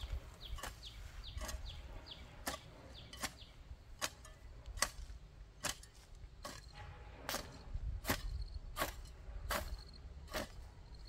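Metal hoe blade chopping into garden soil in a steady rhythm, about one stroke every 0.8 seconds.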